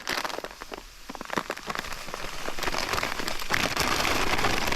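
Dry fishing groundbait mix being poured out of a packet into a bucket: a dense, gritty hiss of falling crumbs that grows louder and fuller through the pour.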